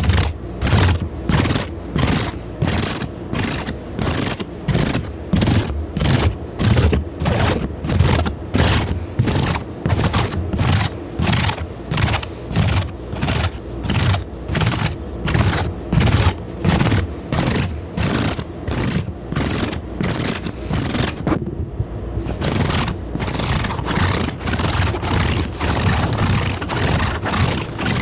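Close-up ASMR scraping strokes repeating rhythmically, about two a second. After a brief break about three-quarters of the way through, the strokes come faster and closer together.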